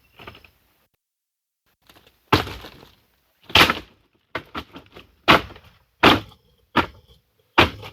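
A series of sharp cracking strikes on wood, about nine in all, spaced irregularly, with a quick cluster of three in the middle.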